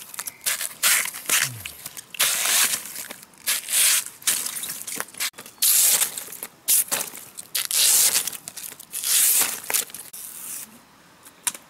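A large knife splitting and shaving a bamboo stalk into thin strips: a run of irregular tearing, scraping strokes as the fibres split apart, ending with one sharp crack.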